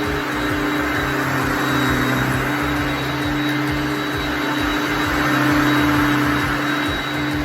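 Hoover Concept One upright vacuum cleaner running, a loud steady motor hum and airflow rush that swells and eases slightly in loudness.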